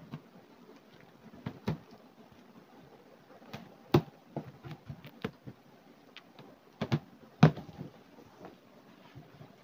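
Cardboard carton being opened by hand: scattered knocks, scrapes and rustles as the sealed flaps are slit and pulled apart. The two loudest knocks come about four seconds in and again about three and a half seconds later.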